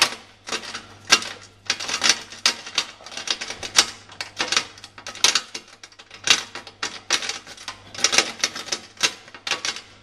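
A metal wafer rake scrubbed in and out of a mailbox's wafer lock: irregular, rapid metallic clicking and rattling, several clicks a second. The noise is loud enough that it might be too noisy.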